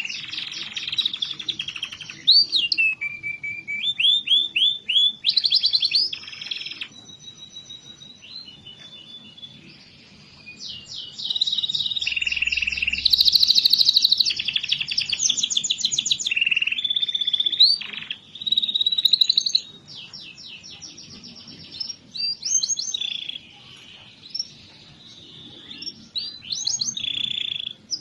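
Domestic canary singing a long, varied song of rapid trills and rolling phrases, switching between higher and lower trills with brief pauses between phrases.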